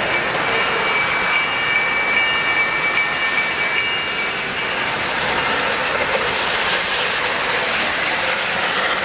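O-scale three-rail model train cars and a steam locomotive rolling past on the track, a steady running noise of wheels on rails. A high steady tone sounds on and off during the first four seconds.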